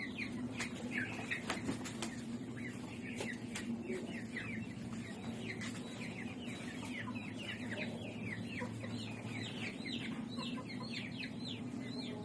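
Columbian Light Brahma chicks peeping: many quick, falling peeps that grow thicker toward the end, over a steady low hum.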